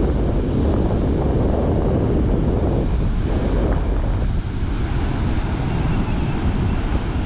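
Wind buffeting the microphone in a dense, steady rumble, with ocean surf washing underneath.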